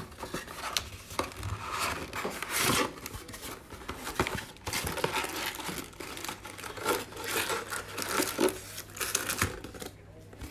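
Plastic wrap being torn and crinkled off a cardboard trading-card box, then the box lid and inner cardboard flaps pulled open: a string of irregular rustling and tearing sounds.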